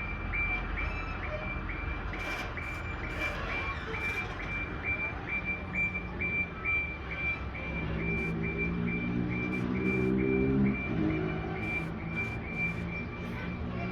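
Box truck's reverse alarm beeping at a steady high pitch, about two beeps a second, over the low running of the truck's engine. About eight seconds in, a deeper engine note swells for nearly three seconds, then drops back.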